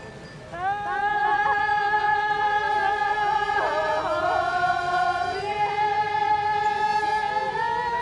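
A group of women singing together in unison, long held notes that slide from one pitch to the next; the song starts about half a second in.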